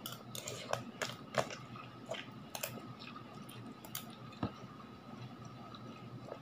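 Slurping and chewing a mouthful of spicy instant noodles, with scattered short wet clicks and smacks.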